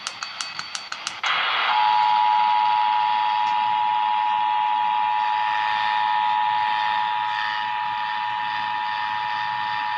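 Emergency Alert System two-tone attention signal (853 and 960 Hz sounded together) received over the radio, a steady, loud dual tone over hiss that starts about two seconds in and announces a Required Monthly Test. Before it comes a run of rapid clicks, about four a second, ending in a short burst of noise.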